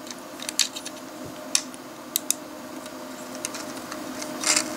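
Small hard plastic LEGO pieces clicking and tapping as they are handled and pressed onto a model, a few sharp clicks spread apart, with a brief rustle near the end.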